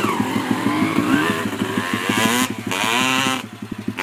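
Honda CR250R two-stroke motocross engine accelerating hard away, its pitch climbing and dropping with each gear change. It grows fainter near the end as the bike gets farther off.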